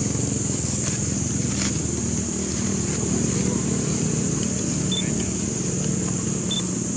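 Steady outdoor background: a low rumble like passing or idling vehicles, with indistinct voices and a steady high hiss, and two short high chirps, one about five seconds in and one near the end.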